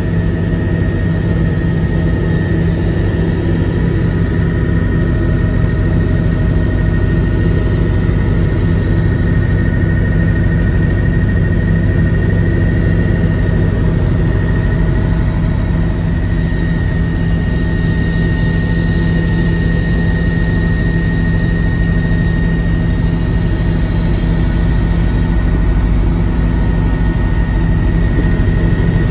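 Helicopter in flight heard from inside the cabin: a loud, steady low drone of the rotors and engine with a thin, constant high whine above it.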